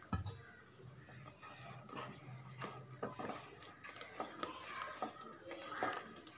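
Wooden spatula stirring and scraping thick gram-flour, sugar and ghee batter in a pan, in faint, irregular strokes.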